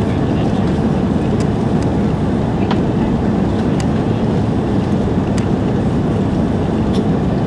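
Steady cabin roar of an Airbus A330-300 in its climb after takeoff, heard inside the cabin: the Rolls-Royce Trent 700 engines and rushing air make a deep, even rumble. A few faint ticks sound through it.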